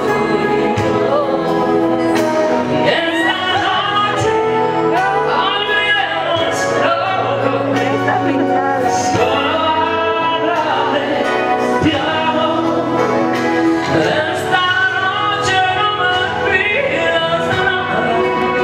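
A woman singing a slow song into a microphone over instrumental accompaniment, with long held notes.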